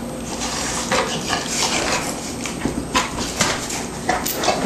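A dog scrabbling about on a fabric couch while playing with a chew toy: a quick, irregular run of scratching and scuffling sounds.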